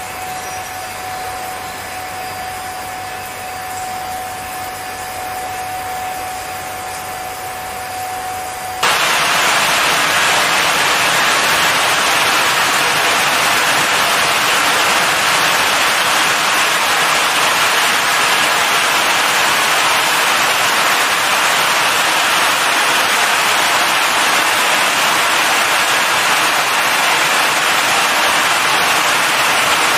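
Touchless car wash drying blowers: a steady fan hum with a thin whine, then about nine seconds in the air blast cuts in as a loud, even rushing hiss that holds steady.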